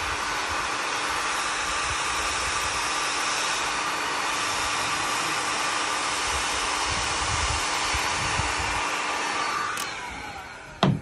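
Steinel HL 2020 E electric heat gun with a hot-blade cutting attachment running with a steady fan hiss and hum while it heats and cuts a plastic horseshoe. It dies away about ten seconds in, followed by a single sharp knock.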